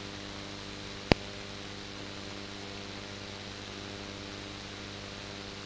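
Steady hiss with a low electrical hum, the background noise of the recording in a pause, broken by a single sharp click about a second in.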